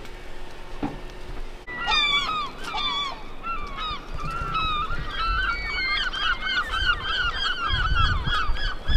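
A flock of birds calling: short, honking calls that bend down in pitch, starting about two seconds in and coming thick and fast, around three a second, from the middle on. A low rumble comes in near the end.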